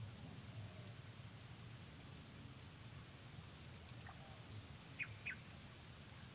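Steady high-pitched drone of insects, with a low rumble beneath. About four seconds in a short falling chirp, then two sharper falling chirps close together a second later.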